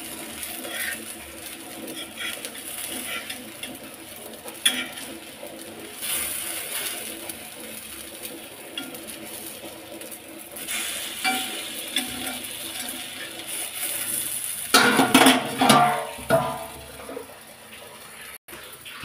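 Brinjal slices sizzling as they shallow-fry on an iron tawa, with a metal spatula clinking and scraping on the pan as the slices are turned. There is louder metallic clattering and ringing about three-quarters of the way through.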